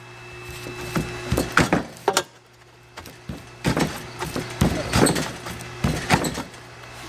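Irregular knocks and clanks of steel exhaust pipe being handled and struck, about a dozen over several seconds, with a steady low hum underneath.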